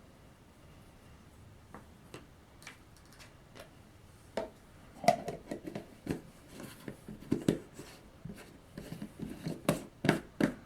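Objects being handled on a tabletop: a few light clicks, then from about four seconds in a run of irregular knocks and clatter.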